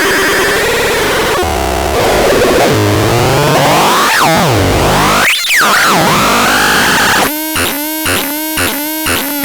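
ADEPAX synthesizer playing noisy tones that glide up and down in pitch. About seven seconds in, it changes to an even pulsing pattern of short repeated notes, about two or three a second.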